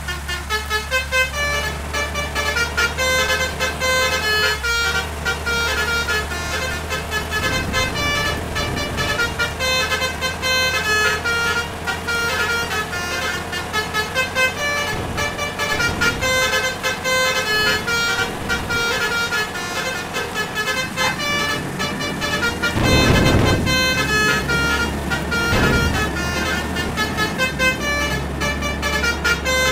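Multi-tone Basuri 'telolet' air horns playing quick little tunes over and over, over a steady low engine and road rumble. A louder rush of noise comes about 23 seconds in.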